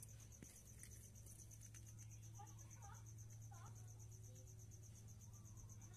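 Faint, steady high-pitched insect trill, evenly and rapidly pulsing, over a low steady hum. A few brief faint chirps come a little past the middle.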